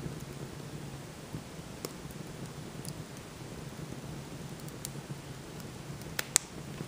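Fire burning in a fireplace stove, crackling: scattered sharp pops over a steady low rush, with two louder pops close together near the end.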